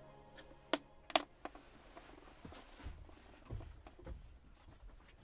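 Dry-erase marker on a whiteboard: a few sharp taps early on, then faint scratchy strokes and soft knocks of the marker and hand against the board.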